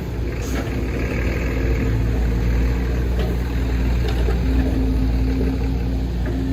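Heavy diesel engine of a Case 145D excavator running steadily as the machine works, with a brief hiss about half a second in.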